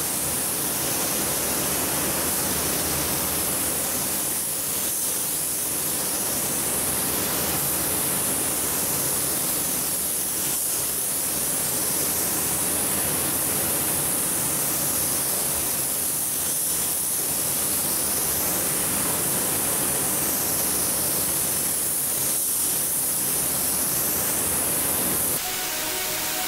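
Gravity-feed air spray gun hissing steadily as it atomises paint onto a van roof. The hiss cuts off suddenly about a second before the end.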